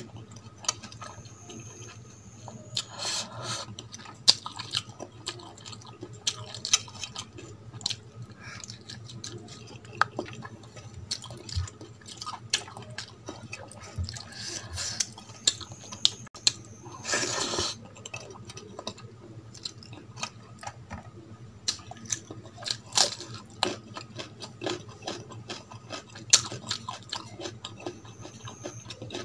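Close-miked eating sounds: wet chewing and mouth clicks of rice and curry, with fingers mixing rice on a steel plate. Many short clicks run throughout, with a couple of longer rustling bursts.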